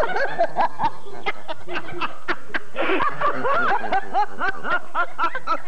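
A woman and a man laughing hard together, in continuous runs of short, repeated 'ha' sounds.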